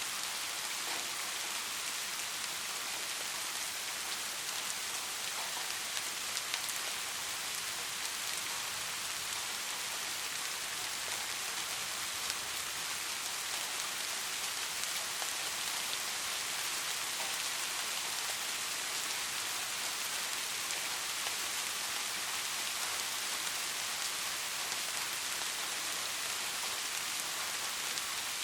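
Steady rainfall: an even hiss of rain with the patter of individual drops landing on surfaces.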